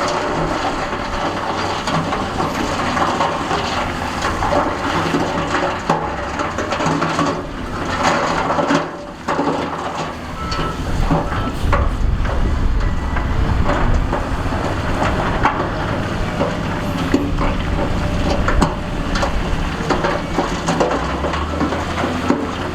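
Heavy diesel earthmoving machinery running under load, with rock and dirt crunching and scraping as they are pushed.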